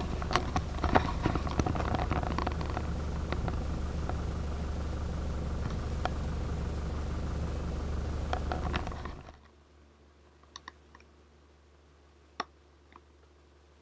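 A vehicle engine running with a steady low rumble, heard from inside a pickup's cab, with small clicks and rattles over it. About nine seconds in it dies away to a quiet background with a few light clicks.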